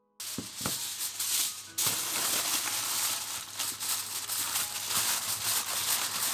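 A continuous rustling, scraping rattle that starts suddenly as a piano tune ends, and grows louder about two seconds in.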